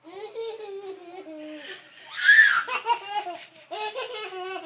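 Toddler laughing hard in high-pitched runs of laughter, with a loud breathy outburst about two seconds in, then quicker bursts of laughter.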